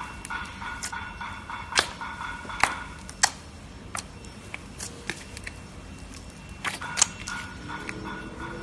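Slime being squeezed and poked, giving sharp irregular clicks and pops, a few of them much louder than the rest.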